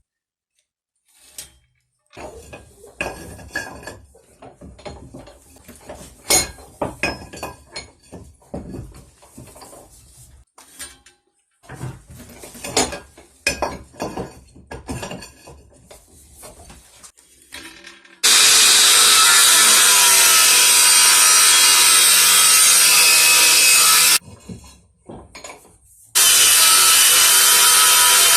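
Irregular knocks, scrapes and rubbing of workshop handling, then a power tool working scrap steel, running loud and steady in two runs of about six and three seconds with a short pause between.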